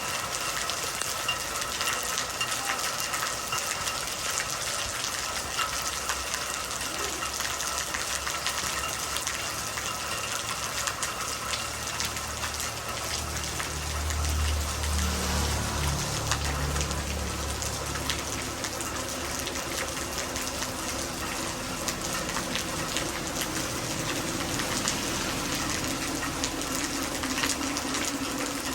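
Soft rain falling steadily, with many small drop ticks over an even hiss. A low rumble swells and fades about halfway through.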